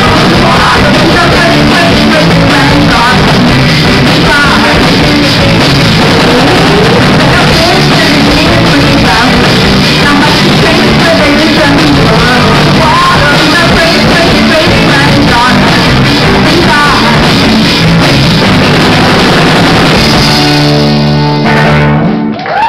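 Live rock band playing loud: electric guitars, bass guitar and drums, with a singer. About a second before the end the band holds one chord, which then cuts off.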